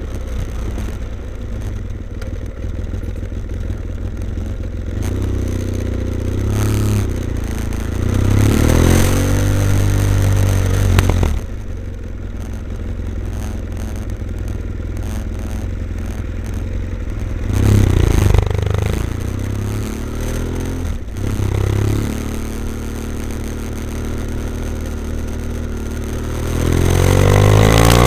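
BMW F800ST's parallel-twin engine through a Blue Flame twin-port exhaust with both baffles in, running at low revs in traffic. It revs up and pulls away three times, about eight seconds in, about eighteen seconds in and near the end, easing off in between.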